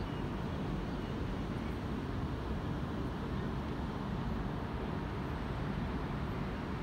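Steady low rumble of open-air city background noise, with no single event standing out.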